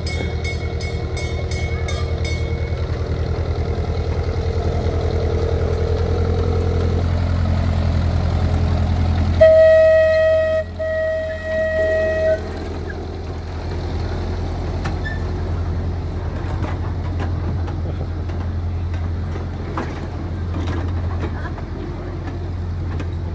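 Miniature ride-on park train, its locomotive dressed as Thomas the Tank Engine, running by with a steady low hum. About ten seconds in it sounds three toots of one steady pitch, the first the longest, before the open passenger cars roll past.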